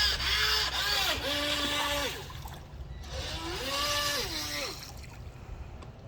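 Small electric motor of an H120 RC speedboat whining as the throttle is opened and closed, rising in pitch, holding and falling again, in two longer bursts and one shorter one.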